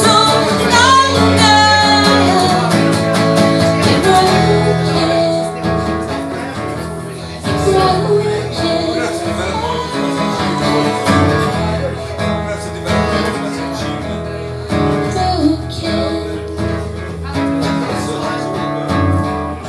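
Live acoustic duo: a strummed acoustic guitar with a woman singing into a microphone, the voice strongest in the first few seconds. The music gets gradually quieter toward the end, in the closing bars of the song.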